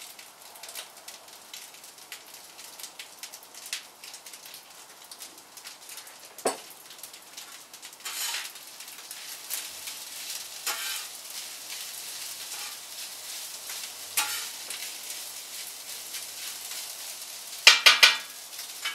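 Egg-coated rice frying in hot oil, with a steady sizzle and crackle, stirred now and then with scrapes. A quick run of loud knocks comes near the end.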